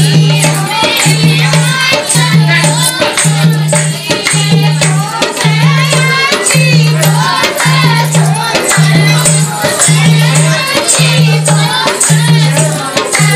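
Village folk dance song (dehati naach geet): a voice singing over a steady beat, with jingling, rattling percussion and a low note pulsing about once a second.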